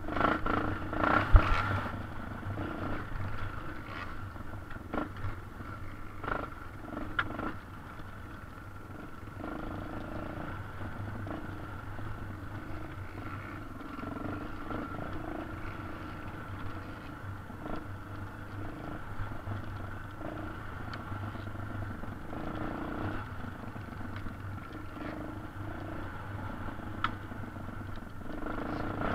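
Yamaha TT600R's single-cylinder four-stroke engine running at a steady pace on a dirt trail, with a few sharp knocks from the bike over rough ground, the loudest about a second in.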